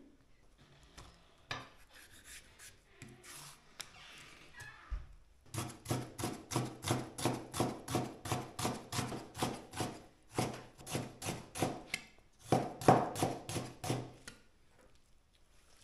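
Cleaver cutting pickled napa cabbage (suancai) on a wooden chopping board. A few soft cuts come first, then from about five seconds in a fast, even run of chopping knocks, about three or four a second, which stops shortly before the end.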